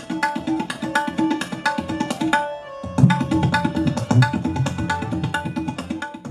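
Percussion music: a fast run of pitched drum strokes, with deeper bass strokes joining about three seconds in.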